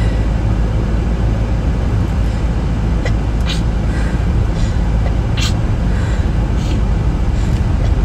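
Steady low background rumble, with a few brief, faint sharp sounds scattered through it.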